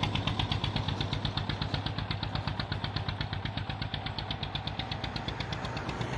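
Motorcycle rickshaw engine running with a fast, even chugging beat, fading steadily as the rickshaw pulls away.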